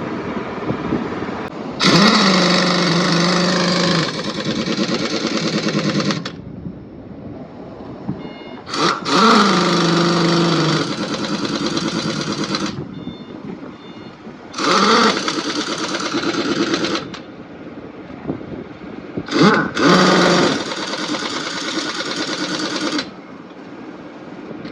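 Pneumatic impact wrench on truck wheel nuts, running in four bursts of two to four seconds that start and stop abruptly, over a steady lower background hum.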